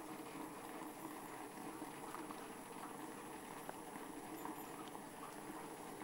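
Top-loading washing machine running, with a steady churning, bubbling wash of water in the tub around the agitator. A few faint clicks sound over it.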